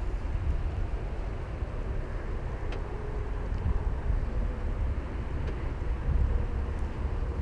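Low gusting wind rumble on the microphone over the faint sound of a DS 3 Crossback with the 1.2 PureTech three-cylinder turbo petrol engine driving past and away.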